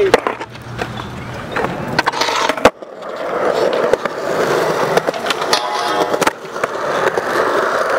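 Skateboard wheels rolling on concrete, broken by sharp clacks of the board. The loudest clack comes about a third of the way in, and another comes later as the board is popped into a trick.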